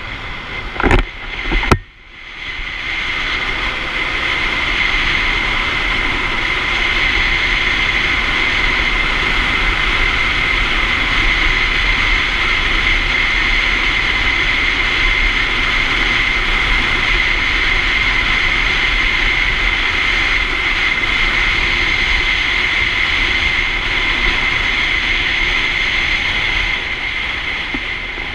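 Honda Storm 125 motorcycle accelerating and running on, recorded by an onboard camera: after two short knocks about a second in, the engine and wind noise build over a couple of seconds and then hold steady and loud.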